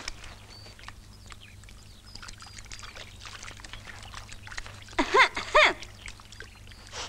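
Water running from a hose into a barrel, with scattered small clicks and a few faint high chirps. About five seconds in come two short animal calls, each rising and falling in pitch; they are the loudest sound.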